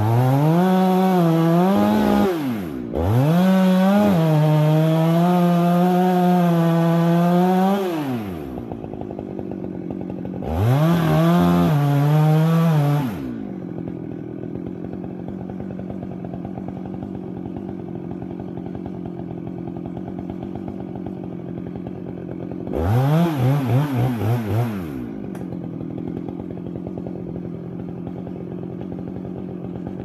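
Husqvarna two-stroke chainsaw cutting into an oak trunk at full throttle, its pitch sagging and recovering under the load, then dropping to idle about eight seconds in. It revs up again a few seconds later, then gives a quick run of throttle blips about two thirds of the way through and idles steadily after.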